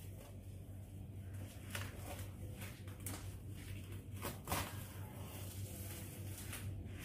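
Plastic cling film rustling and crinkling as it is peeled off a plastic tub, in scattered short crackles with the loudest about four and a half seconds in.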